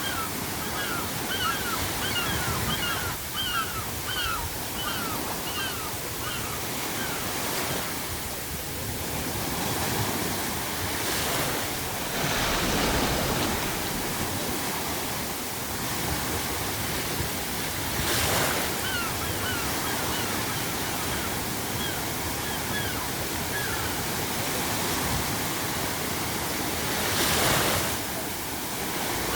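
Ocean surf breaking on the shore under a steady hiss of added pink noise, with the waves surging louder several times. Seagulls call in runs of short, quickly repeated cries near the start, again past the middle, and near the end.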